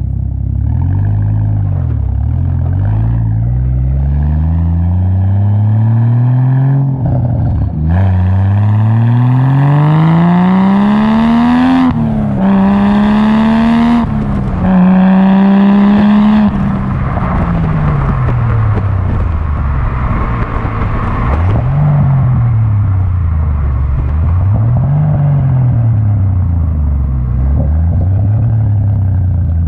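Ford FG X Falcon XR6 Turbo's turbocharged 4.0-litre straight-six, breathing through a 4-inch dump pipe and 3.5-inch cat-back exhaust with the middle muffler deleted, accelerating hard through the gears. The note rises in pitch and drops sharply at each upshift, then eases off and rises and falls with the throttle while cruising. Heard from right beside the exhaust outlet.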